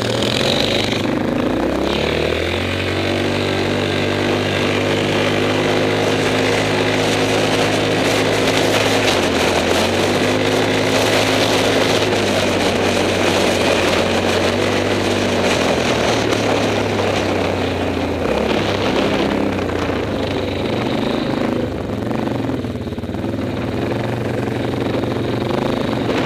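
A single-cylinder four-stroke ATV engine under way on a dirt trail, heard from the rider's seat. Its pitch climbs and eases several times as the quad speeds up and slows, over a steady rush of tyre and wind noise, and it drops lower near the end as it slows down.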